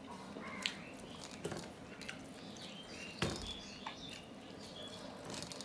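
Eating by hand from a stainless-steel plate: fingers mixing rice with fish curry, with a few sharp clicks of fingers on the plate and chewing. The loudest click comes a little past halfway.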